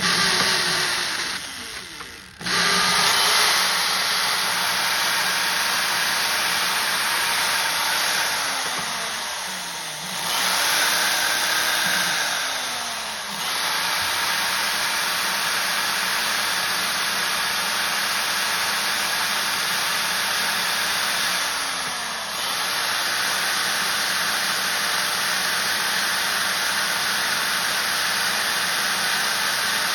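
Electric drill running a left-handed drill bit in reverse into a broken mower wheel bolt, a steady motor whine with drilling noise. It stops briefly about two seconds in, and its pitch sags and recovers three times, near nine, thirteen and twenty-two seconds.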